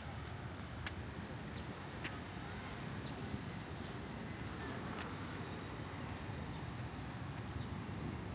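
City street ambience: a steady low rumble of passing traffic with a few scattered light clicks, and a thin high tone lasting about a second and a half near the end.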